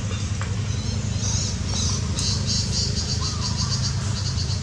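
Insect chirping in quick, evenly pulsed high trills that start about a second in and repeat in short runs, over a steady low rumble.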